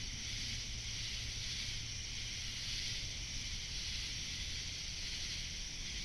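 Steady chorus of night-singing insects, a constant high-pitched buzz that never lets up, over a faint low rumble.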